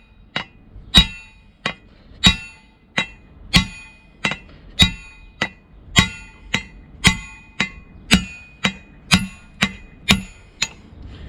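Hammer blows knocking a tight mounting pin out of a DAF truck's cab-lift cylinder, steady at about one or two a second, each blow ringing like struck metal.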